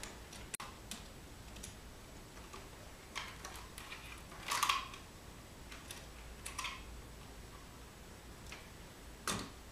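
Faint, scattered clicks and taps of small hand tools and a short wire jumper being handled at a screw-terminal barrier strip. The jumper is being fitted across two terminals.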